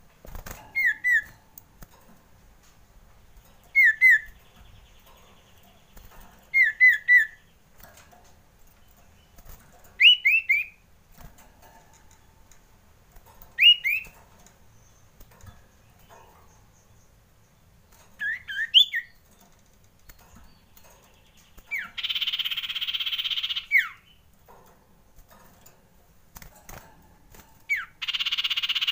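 Common iora (cipoh) calling: short sharp whistled chirps in twos and threes every few seconds, then late on two harsh, rasping scolds of about two seconds each. These are the frightened alarm calls of a male iora, used as a lure call.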